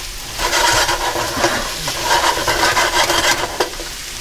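Wooden spatula stirring and scraping chopped pork sisig around a stainless skillet, with the meat sizzling as it fries. The scraping is dense and full of small clicks, and eases briefly near the end.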